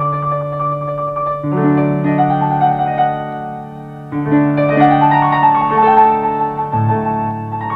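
Piano music playing held chords that change every few seconds.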